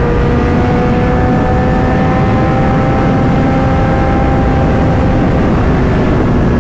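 Kawasaki ZX-10R sport bike's engine running while riding, its note climbing slowly and then fading about five seconds in, under heavy wind rush on the microphone.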